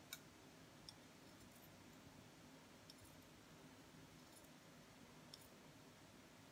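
Faint, irregular clicks of scissors snipping through fabric, about half a dozen, the sharpest right at the start, over a quiet room hiss.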